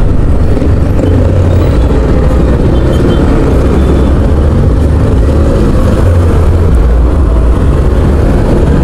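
Honda ADV 160 scooter under way, its single-cylinder engine running steadily beneath a loud, uneven rumble of wind and road noise on the microphone.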